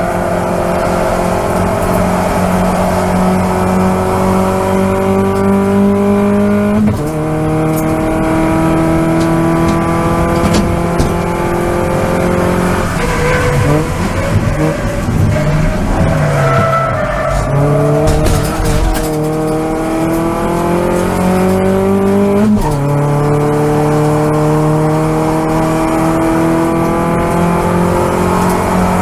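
Onboard sound of a Toyota Vios Cup race car's four-cylinder engine under full throttle, its note climbing steadily through the gears. It drops sharply at upshifts about a quarter of the way in and again about three quarters of the way in. In between, the engine note breaks up and falls while the car slows for a corner, with tyre noise, then climbs again.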